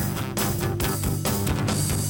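Live rock band playing amplified through a PA: acoustic and electric guitars and keyboard over a steady drum beat.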